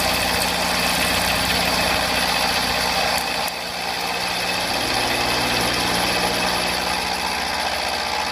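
Milling machine running a 20 mm end mill at 900 rpm through steel, 5 mm deep at 40% width of cut: a steady cutting noise over the drive's hum, with a brief drop in level about three and a half seconds in.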